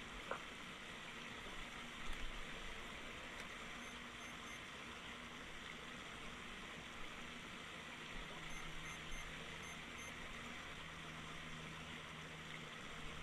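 Faint steady hiss of room tone and microphone noise, with a faint low hum.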